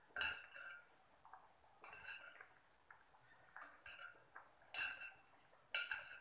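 Metal spoon clinking and scraping against a non-stick cooking pot while spooning sauce over a braising whole chicken, with about half a dozen short clinks every second or so.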